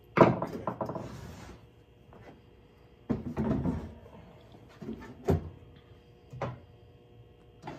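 Sheet-metal access panel of an electric garage heater being handled and pulled off: a sharp clack just after the start, then rattling about three seconds in and a few separate knocks.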